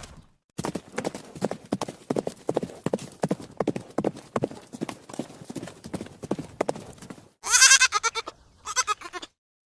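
Rapid hoof steps clattering for several seconds, then a sheep bleating twice, the first bleat longer and louder, near the end.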